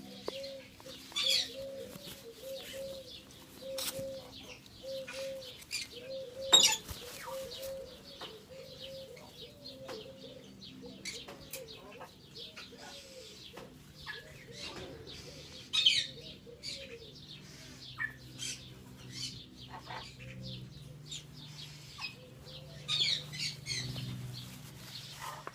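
Baby hybrid macaw making soft, short repeated calls, about two a second, for the first half, with scratchy beak clicks and feather rustling throughout. There is a sharp knock about six and a half seconds in and a few louder high chirps later on.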